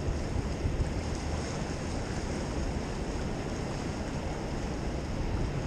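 Steady rumble of wind on the microphone over choppy river water.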